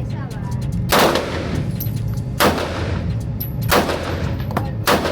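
Four handgun shots, fired at about one every 1.3 seconds, each with a short ringing tail. Fainter, sharper cracks fall between them over a steady low rumble.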